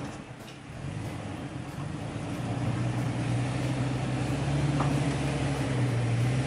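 Toyota FJ Cruiser's 4.0-litre V6 engine running at low revs as the truck crawls over rocks, its steady note firming up and growing a little louder from about two seconds in.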